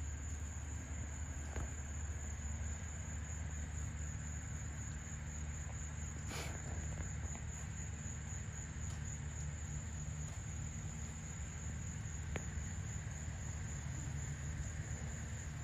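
Steady high-pitched chorus of insects trilling without a break, over a low steady rumble, with one brief tick about six seconds in.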